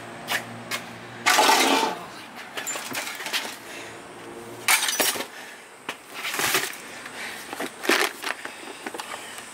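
Metal tools and hardware clinking and clattering as they are handled and shifted in a plastic storage tub, in several separate bursts, the biggest about a second and a half in.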